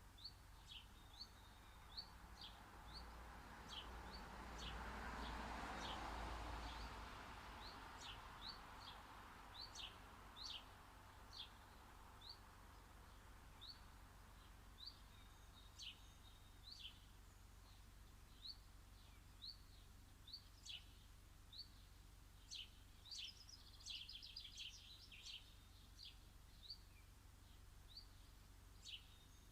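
A garden bird chirping over and over in short, high, faint chirps about once a second, with a quicker run of chirps late on. A soft rushing noise swells and fades a few seconds in.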